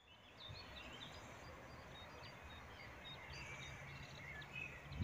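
Faint birdsong, scattered short chirps and trills, over a low steady background hum.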